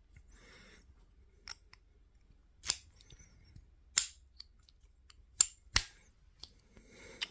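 Brass padlocks with steel shackles and their keys being handled: a string of about seven sharp metallic clicks and snaps, a few of them loud, with faint rustling between.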